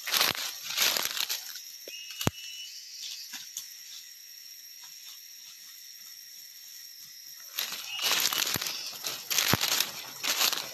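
Footsteps crunching through dry leaf litter, pausing for a few seconds in the middle and starting again at a walking pace near the end.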